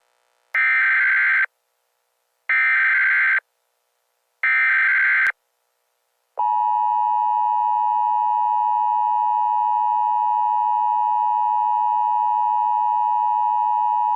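Emergency Alert System tones: three short bursts of the SAME digital data header, then the steady two-tone EAS attention signal held for about eight seconds. Together they announce an emergency alert, here a severe thunderstorm warning.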